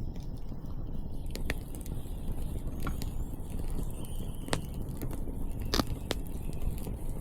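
Wood campfire crackling, with sharp pops coming irregularly, about six in all, over a steady low rumble.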